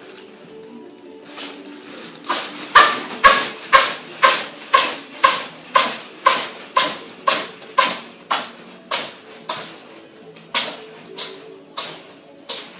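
A cat sneezing over and over in a sneezing fit, about twenty sharp sneezes at roughly two a second, spacing out a little near the end.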